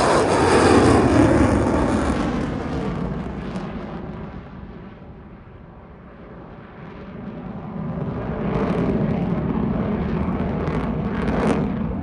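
Aircraft engine noise from a low flypast: it bursts in loud, then drops in pitch and fades as the plane passes. About eight seconds in, the engine noise builds again as another pass comes in.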